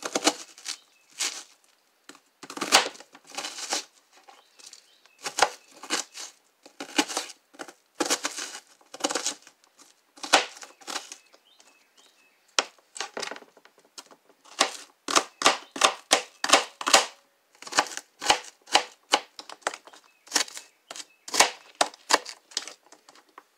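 Kitchen knife chopping an onion on a clear plastic cutting board: sharp, irregular knocks of the blade on the board, picking up into faster runs of about three strokes a second in the middle and later part as the onion is minced.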